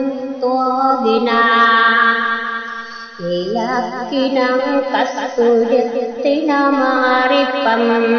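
Singing voice in a chant-like melody, holding long notes that waver and step from pitch to pitch, with a brief dip in loudness about three seconds in.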